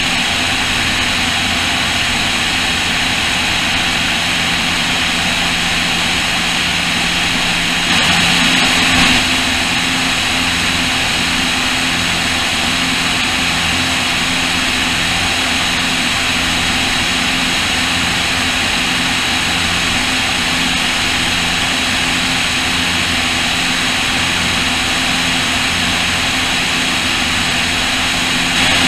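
Cessna O-2A in cruise, heard from a camera mounted on the wing: the steady drone of its twin push-pull Continental IO-360 piston engines and propellers, mixed with rushing airflow. The sound swells briefly about eight seconds in.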